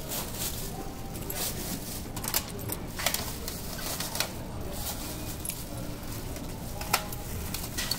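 Thin plastic carrier bag rustling and crinkling as goods are packed into it, with a few sharp clicks, the loudest about seven seconds in, over a steady low hum.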